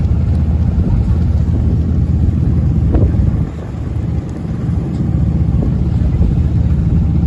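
Steady, loud engine drone with a brief dip about three and a half seconds in.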